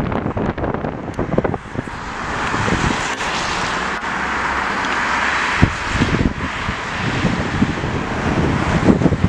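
Wind gusting on the microphone, with a jet airliner's engine noise swelling as it passes overhead a couple of seconds in, peaking about halfway and easing off, while the wind buffeting returns near the end.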